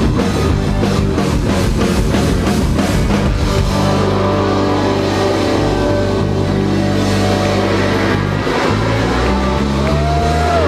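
Live rock band playing loudly: distorted electric guitar, bass and drums. The drum beat drops out about four seconds in, leaving long-held guitar and bass chords, with one bending high note near the end.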